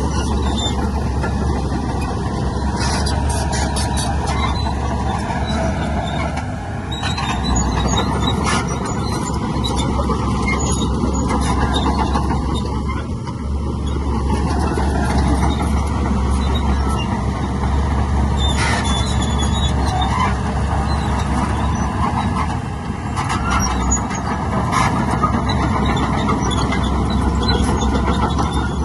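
Heavy diesel earthmoving machinery running steadily, with scattered metallic clanks and squeals.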